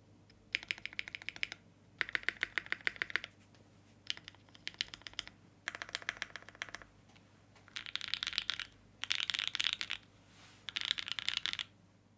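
Think6.5 V2 65% custom mechanical keyboard with lubed Opblack linear switches on an FR4 plate and GMK keycaps, typed in seven short runs of rapid keystrokes about a second each. The last three runs are brighter and denser. The builder thinks the switches may be a tad over-lubed.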